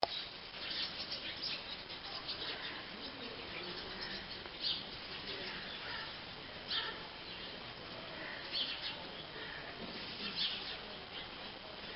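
Short high chirps, like small birds, recurring about every two seconds, with fainter chirps and ticks between them over a steady background hiss.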